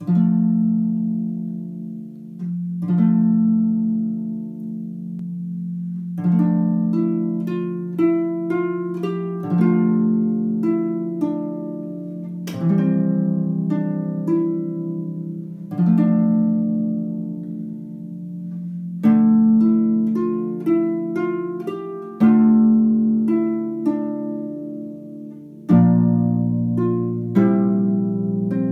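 Solo harp played by hand: a slow tune of plucked notes that ring on, with a low bass note or chord struck about every three seconds beneath a melody of quicker notes.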